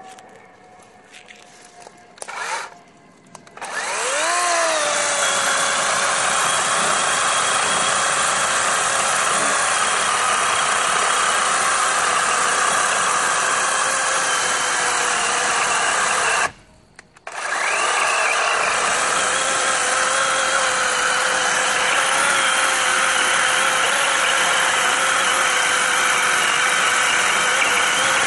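DeWalt 20V XR brushless 12-inch battery chainsaw (DCCS620B) cutting through a log: a short blip of the trigger, then the motor spins up and runs steadily with a whine as the chain bites into the wood. Near two-thirds of the way through it cuts out for a moment, then spins back up and keeps cutting.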